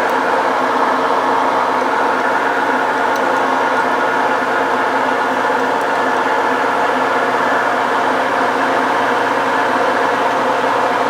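Metal lathe running steadily, its motor and drive humming, during a light finishing boring pass inside a pulley bore.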